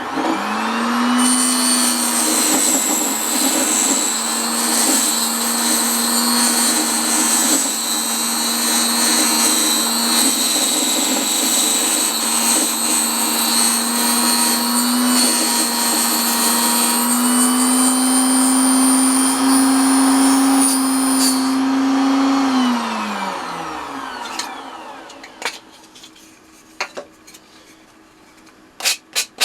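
Proxxon KS 230 miniature table saw switched on, its motor running steadily with a high whine while trimming a small piece off a wooden part. About 22 seconds in it is switched off and the blade spins down with falling pitch, and a few light knocks follow near the end.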